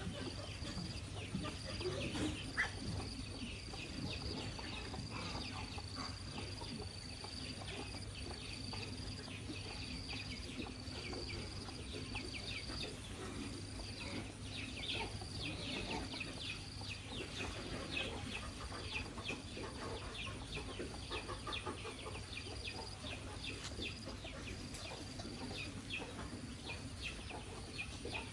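Chickens clucking on and off, over a high insect trill that comes in repeated bursts of about a second.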